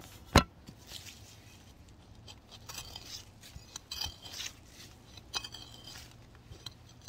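Hand trowel digging into soil: scattered scrapes and gritty crunches of the blade working the earth, after one sharp knock about half a second in.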